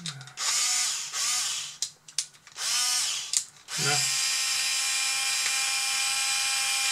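Small cordless screwdriver driving a screw into a plastic model part: three short bursts, then one long steady run with a constant whine from about four seconds in.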